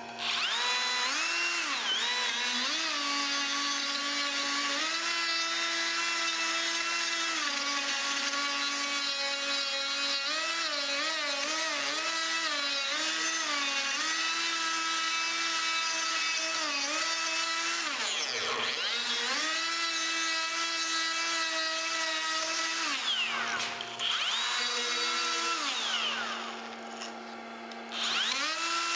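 DeWalt 20V cordless die grinder spinning a round Kutzall burr into dry apple wood, a high steady whine whose pitch wavers and dips as the burr bites. The whine slows and picks back up about two-thirds of the way through, then drops off briefly and restarts near the end, as the burr is touched to high spots in the spoon bowl.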